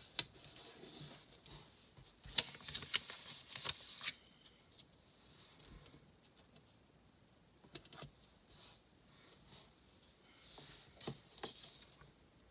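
Faint rustling and scattered taps of a hand on paper: a palm rubbing and pressing stickers flat onto a spiral-bound planner page. The rustles come in short clusters at the start, a couple of seconds in, and twice more later on.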